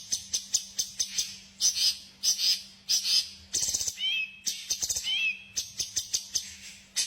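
Songbird calls: a rapid run of sharp, high chips repeated several times a second, broken about four and five seconds in by two short whistled notes that rise and fall. A faint steady hum runs underneath.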